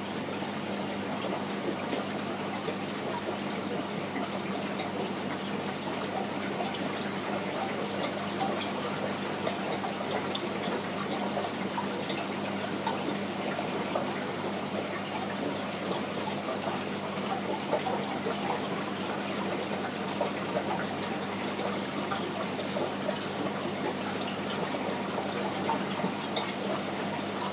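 Aquarium water trickling and bubbling steadily, with many small bubbly ticks and a steady low hum underneath.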